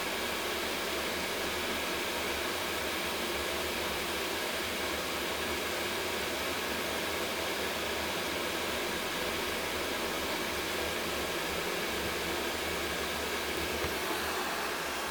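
Tefal Thermovision KI410D30 electric kettle heating water toward the boil: a steady rushing noise.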